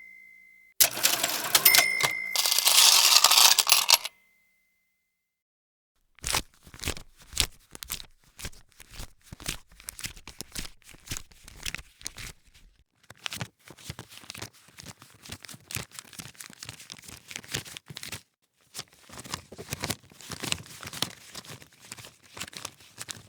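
A cash register rings with a bell ding and a clattering drawer for about three seconds. After a short pause, paper banknotes are riffled and counted in three long runs of quick crisp snaps.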